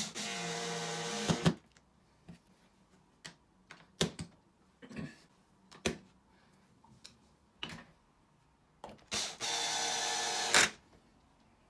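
Makita 18V cordless drill driving screws through steel drawer slides into plywood: a run of about a second and a half at the start and another near the end, each stopping with a sharp click. In between, scattered light clicks and knocks.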